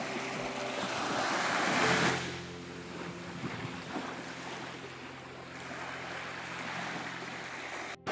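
Small waves washing up onto a sand beach, the surf swelling to a peak about two seconds in and building again near the end.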